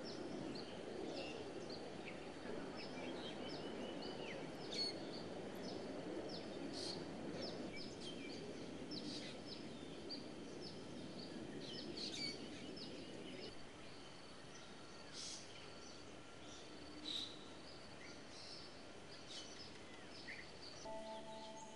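Many small birds chirping and calling in short repeated notes, over a low steady background noise that drops away about two-thirds of the way through.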